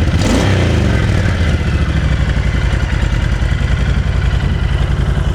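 2012 Honda VT1300CT Interstate's 1300cc liquid-cooled V-twin idling steadily, running smoothly like a sewing machine.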